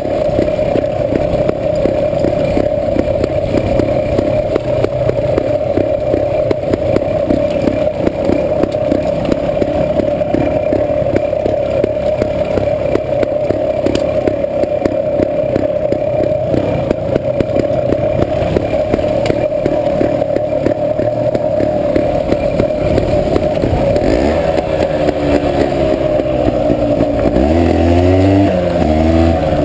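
Off-road motorcycle engine running steadily, with its pitch rising and falling over the last few seconds as the throttle is worked.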